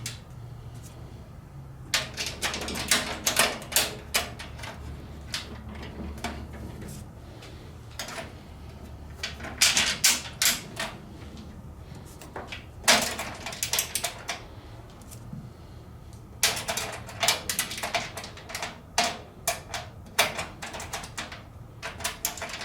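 Bolts and nuts being fitted by hand into a steel tool cart's sheet-metal frame: several bursts of metallic clicking and rattling with quieter stretches between.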